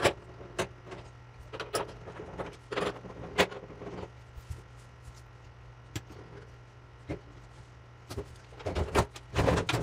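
Scattered clicks, taps and knocks of a hand tool and plastic and sheet-metal parts being handled around the front bulkhead of an opened Samsung dryer, over a steady low hum. The knocks come thicker near the end.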